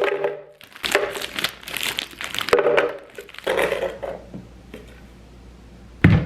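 Crinkling and crumpling, like packaging or wrapping being handled, in several dense bursts over the first four seconds or so, then a single sharp knock near the end.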